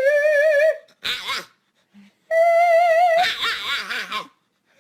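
Dog howling and whining: a long wavering howl, a short yelp about a second in, then a second held howl that breaks into a rapid up-and-down yodelling 'talk' near the end.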